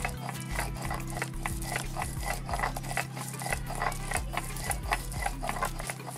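Stone roller of a shil-nora grinding stone rubbed back and forth over the flat stone slab, crushing wet spice paste: a quick, even run of gritty scrapes.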